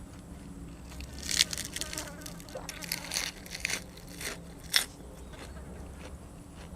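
Close-miked biting and chewing of crisp food: a run of sharp crunchy crackles between about one and five seconds in, loudest at its start and end, over a low steady hum.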